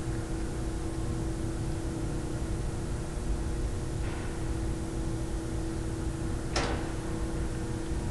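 Steady electrical or machine hum with a low rumble of room noise, broken by a soft brief rustle about four seconds in and a sharper brief sound about six and a half seconds in.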